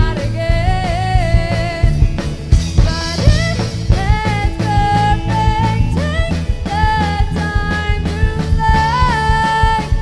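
Indie pop band playing live: drum kit and bass keep a steady pulse under a lead melody of long held notes that slide from one pitch to the next.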